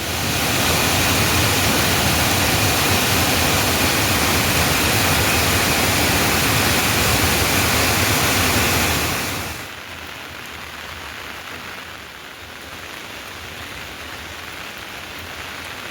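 Heavy rain falling, a loud steady hiss; about nine and a half seconds in it drops abruptly to a much softer rain sound.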